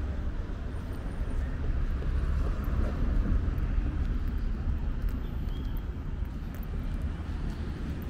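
Street ambience: a steady rumble of road traffic with cars passing, with no single sound standing out.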